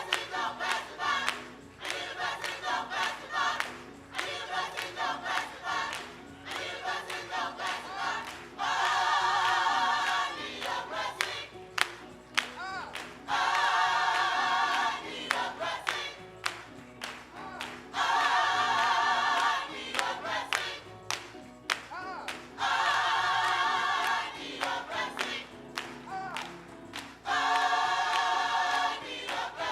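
Gospel choir singing, with loud held chords about every four and a half seconds over a run of sharp percussive beats.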